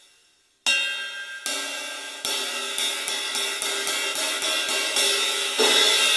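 Old 18-inch A. Zildjian crash/ride fitted with eight nickel-plated steel split rivets, struck with a drumstick, the rivets adding sizzle to its ring. There are three separate hits, the first about half a second in, then quicker strokes about four a second, and a louder crash near the end.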